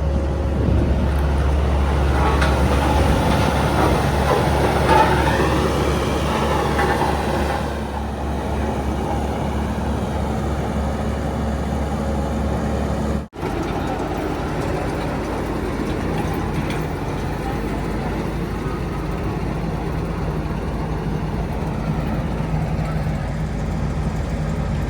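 Heavy diesel machinery running steadily: backhoe loader and truck engines at work, with a brief cut-out about 13 seconds in.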